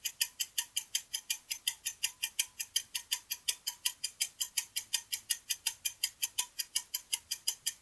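Countdown-timer ticking sound effect: a steady run of clock-like ticks, about five a second, marking the seconds given to answer the quiz.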